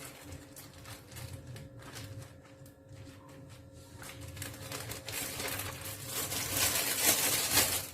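Plastic freezer bag being handled, rustling and crinkling, growing loud over the last three seconds; before that only light clicks over a faint steady hum.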